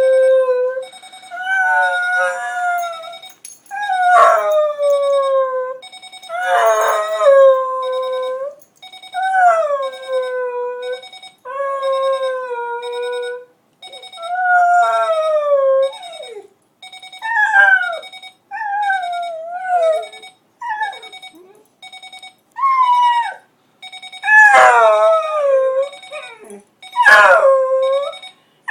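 A beagle howling again and again, about a dozen drawn-out howls that slide down in pitch at their ends. Behind them an alarm clock beeps steadily, and the howls answer it.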